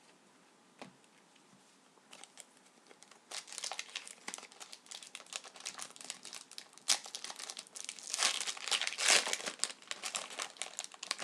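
Trading-card pack wrapper crinkling and tearing as it is opened and handled. The crinkling starts about three seconds in and is loudest near the end.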